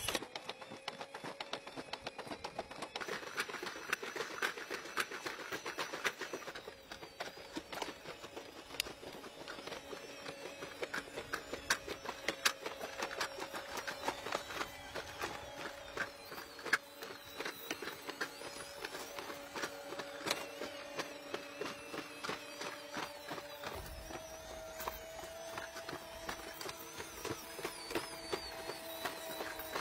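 Four-legged walking robot running: a steady mechanical whine in two tones, with many irregular clicks and taps from its footfalls and joints. About three-quarters of the way through, the whine shifts a little higher.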